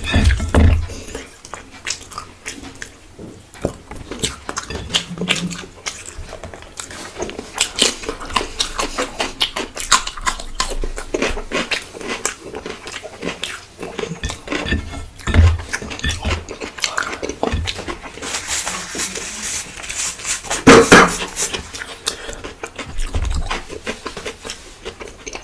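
Close-up eating sounds: wet chewing and lip-smacking on a mouthful of bhuna khichuri eaten by hand, with fingers scraping rice together on the plate. A louder, sharper sound comes about three quarters of the way through.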